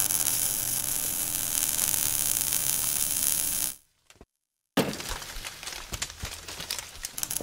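Sound effects for an animated fiery logo reveal. A steady sizzling hiss runs for nearly four seconds and cuts off. After a short gap, a sharp hit comes about five seconds in, followed by irregular crackling like scattering sparks.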